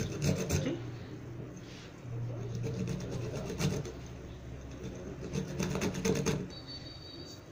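Green argan fruit rubbed on a small metal hand grater: rapid scraping strokes in three spells, at the start, about three seconds in and again about five and a half seconds in.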